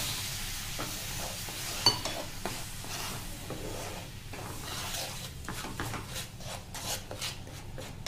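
Wooden slotted spatula stirring and scraping a hot milk-powder, sugar and water mixture around a non-stick frying pan, with a sizzling hiss that thins after a few seconds. One sharp tap about two seconds in, and quicker scraping strokes in the second half.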